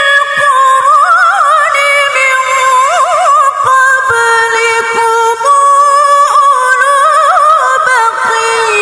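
A woman reciting the Quran in the melodic tilawah style, drawing out long, ornamented sung tones with quick wavering turns, her voice stepping down in pitch near the end.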